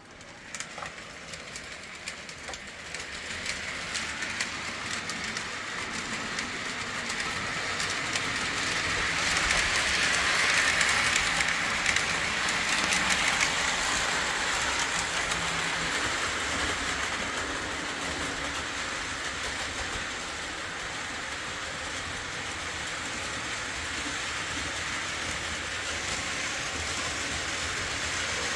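Postwar Lionel O gauge locomotive with a Pullmore motor running on three-rail track as the voltage is cranked up: the motor whir and the clicking clatter of the wheels grow louder over about the first ten seconds, then hold steady.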